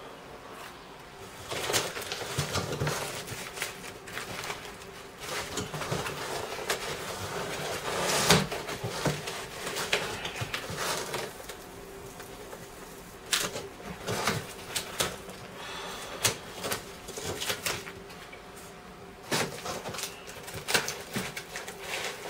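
Packaging being handled during an unboxing: rustling of plastic and cardboard, with scattered knocks and clicks at irregular times, over a faint steady hum.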